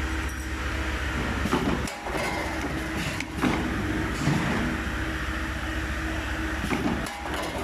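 Automatic flat-wire ring rolling and welding machine running: a steady low mechanical hum with a few sharp clanks at uneven intervals.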